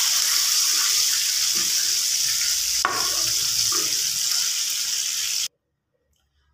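Torpedo scad pieces sizzling steadily in hot oil as they finish frying, stirred with a slotted spoon, with a single sharp click about three seconds in. The sizzle stops abruptly near the end.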